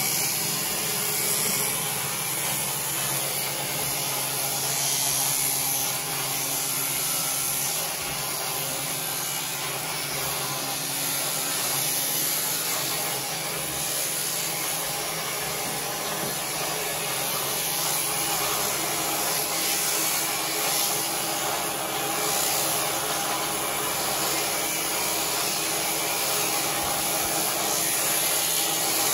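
Electric sheep shears running steadily as they cut through a sheep's fleece: a continuous motor whir with a steady hum.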